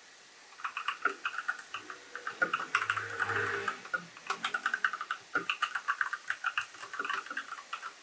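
Fast typing on an RGB-backlit mechanical keyboard: a quick, uneven run of key clacks, with a brief pause about halfway through.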